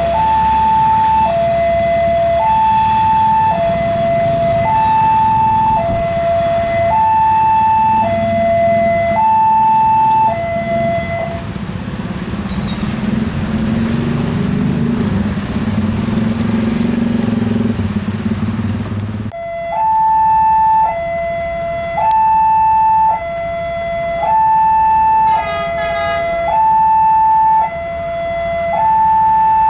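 Railway level crossing warning alarm sounding its two-tone signal, switching between a higher and a lower tone about once a second. About a third of the way in the alarm stops and a low rumble remains. After an abrupt cut about two-thirds of the way through, the two-tone alarm starts again.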